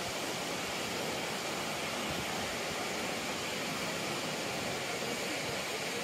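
Steady rushing of the Kravica waterfalls on the Trebižat river, an even, unbroken noise of falling water.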